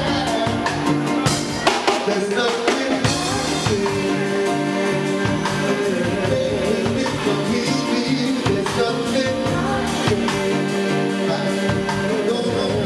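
Soul music performed by a live band: a singer over a drum kit and a steady bass line.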